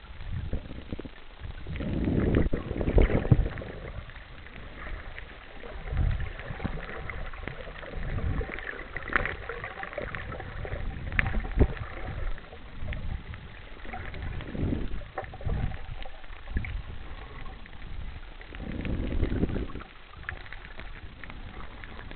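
Muffled underwater water noise picked up by a camera held below the surface: irregular low knocks and sloshing, with a longer swell of noise about two seconds in and another near the end.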